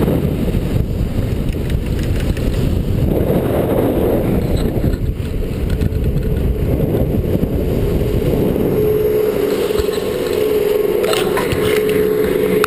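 Wind rushing over a pole-mounted GoPro's microphone while a snowboard carves over groomed snow, its edge scraping. About nine seconds in, a steady hum joins, with a few clicks near the end.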